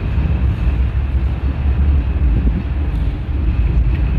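Steady low rumble of outdoor street ambience: wind buffeting the microphone, mixed with road traffic.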